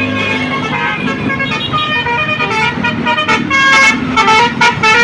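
Bus's multi-tone basuri 'telolet' horn playing a melody of stepped notes, breaking into quick, louder short toots from about three seconds in.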